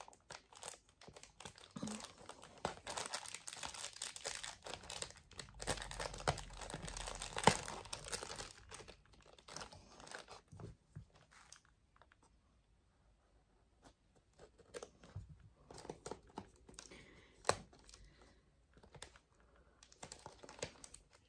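Plastic packaging bags crinkling and tape being picked and peeled as fingers work at the bagged items in a cardboard box. The handling is busy for about the first half, stops for a couple of seconds, then goes on as scattered small crackles.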